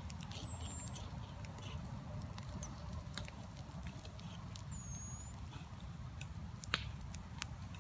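Sticks burning in the centre of an upright-log stove, crackling with scattered sharp pops over a low steady rumble.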